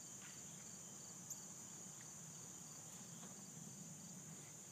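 Faint chorus of insects: a steady high-pitched drone with faint, evenly repeated chirps. A single sharp click comes about a second in.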